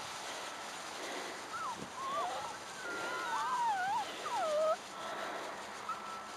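Braque du Bourbonnais puppies whining: high, wavering whines that slide up and down, sometimes two at once, from about a second and a half in until nearly five seconds, over a steady hiss of wind on the microphone.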